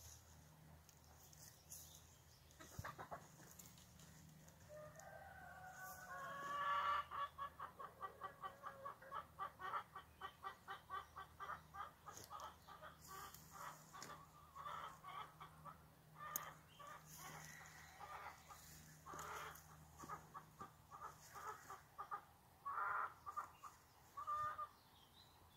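Chickens calling: one drawn-out crowing call from a rooster, then a long run of quick, repeated clucks at about two a second, with a few louder squawks near the end.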